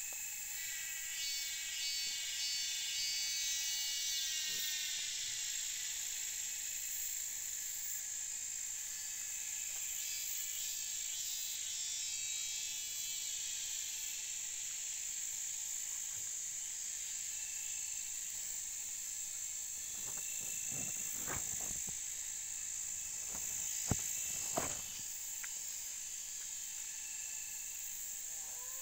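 Insects droning steadily at a high pitch, with rippling trills at times and a few sharp knocks about two-thirds of the way through.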